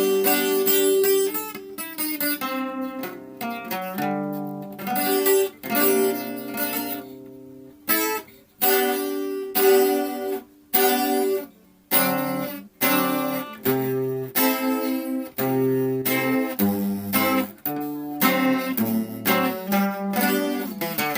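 Acoustic guitar played alone: a run of plucked and strummed chords and short phrases, each ringing out and then stopping, with brief pauses between them.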